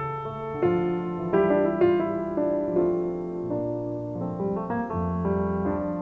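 Background music on piano: a slow melody of held notes over a low bass line.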